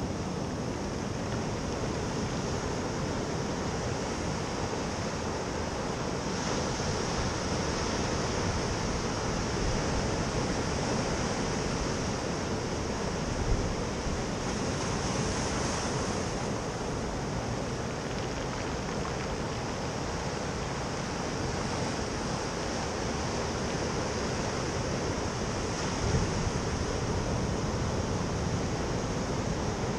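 Atlantic surf breaking and washing up a pebble beach: a steady rush of waves, with some wind on the microphone and two brief thumps, one about halfway and one near the end.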